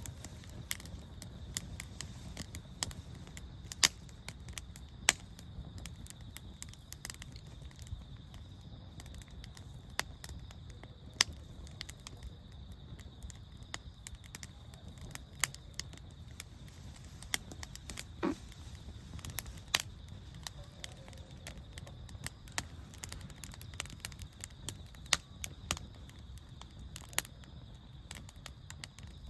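Wood campfire crackling, with irregular sharp pops from the burning wood over a low steady rumble.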